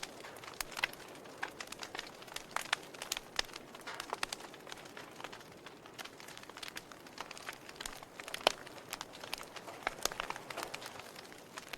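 Wood fire burning in a fireplace: irregular crackles and snaps over a soft steady hiss, with one sharper pop about eight and a half seconds in.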